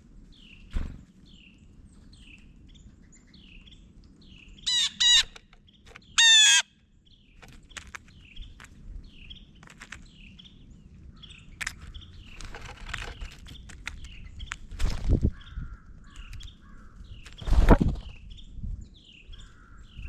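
Small songbirds at a feeder calling, with short chip notes repeating throughout. Two loud, harsh calls come about five and six seconds in, and two heavy thumps come near the end.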